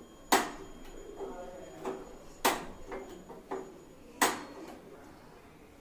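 Handheld gas-stove spark lighter clicked at a gas burner to light it: three sharp clicks about two seconds apart, with fainter clicks in between.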